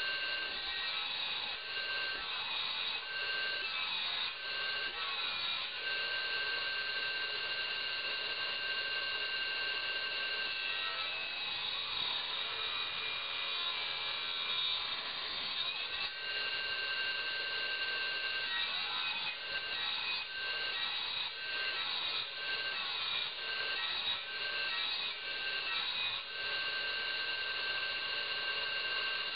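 Belt-driven circular saw, run by electricity, cutting small branches by hand-feeding. A steady high whine from the spinning blade is broken again and again by a rough rasping as each stick is pushed through.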